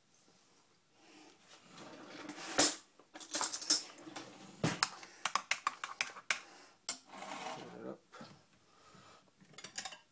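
Kitchen utensils and dishes clattering: a sharp knock about two and a half seconds in, then a run of clinks and clicks.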